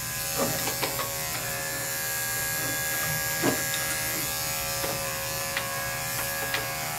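Electric dog grooming clippers running with a steady hum as the coat is clipped, with a few brief ticks along the way.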